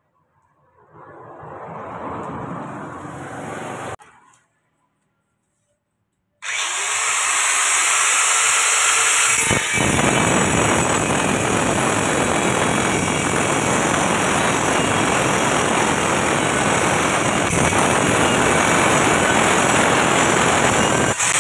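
Handheld angle grinder cutting into the edge of a granite tile strip, running steadily under load from about six seconds in, after a brief silence. A quieter, unclear sound comes before the silence.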